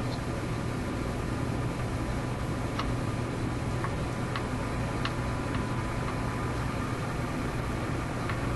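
RCA A25 vacuum tube radio's speaker giving a steady hiss of static over a low hum, with a faint steady tone, while tuned to a weak test signal radiated from a signal generator during loop-antenna alignment. A few faint ticks sound around the middle.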